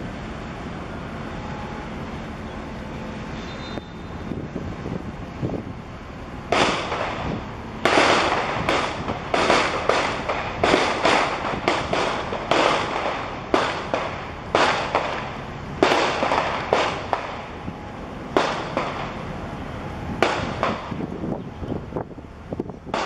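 Waves slapping against the shore as a large container ship's wake arrives: a quick run of sharp splashes, about one or two a second, beginning about six seconds in over a steady hiss of wind and water.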